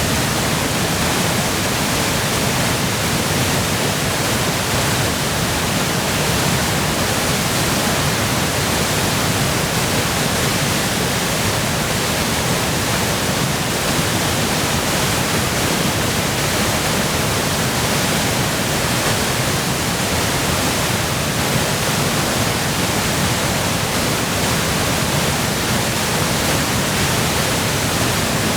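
Waterfall running in full spate, swollen by spring melt and heavy rain: a loud, steady rush of falling water with no breaks.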